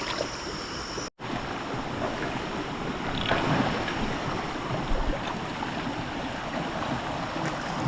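Steady rush of flowing water, with wind on the microphone. The sound drops out for an instant about a second in.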